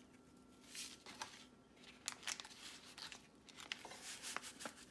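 Seasoning-mix packets crinkling as they are shaken out and emptied into a bowl of broth: faint, scattered short rustles and clicks.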